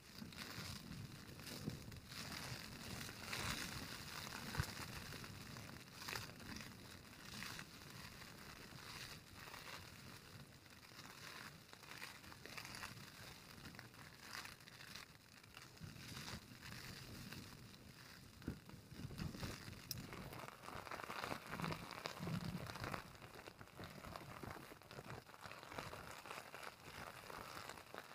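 Faint, irregular rustling and crinkling with scattered small clicks inside a small tent.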